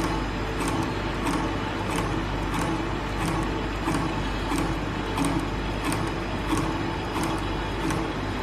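Automatic play dough screw extruder and conveyor running: a steady machine hum with a sharp click repeating about every two-thirds of a second, in time with the machine's cycle.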